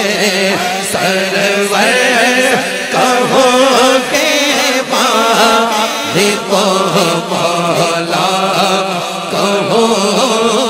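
Men singing a naat, an Urdu devotional song, without instruments: a wavering, ornamented vocal line over a steady low hum.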